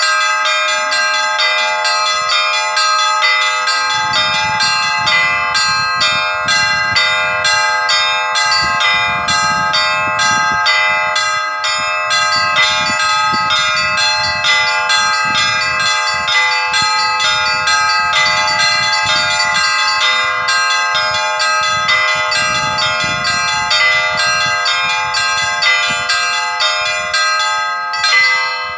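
Russian Orthodox church bells of a small belfry rung together in a trezvon, the full festive peal: several bells struck in a rapid, dense rhythm over their overlapping ringing. A louder closing stroke comes just before the end and is left to ring out.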